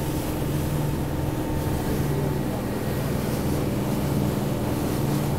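Inboard engine of a varnished wooden motorboat running steadily under way, with water rushing along the hull and churning in the wake.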